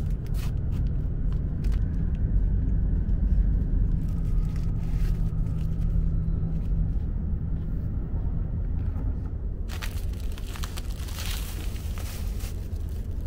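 E5 Series Shinkansen running at speed, heard from inside the passenger car: a steady low rumble, with a brief steady hum near the middle and a louder rushing hiss joining about ten seconds in.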